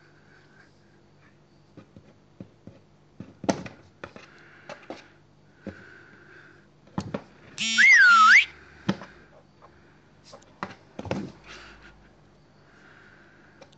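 A cat scratching and batting at the inside of a cardboard banana box, heard as scattered taps, clicks and short scratchy rustles. About eight seconds in, a loud, high-pitched wavering squeak lasts under a second and is the loudest sound.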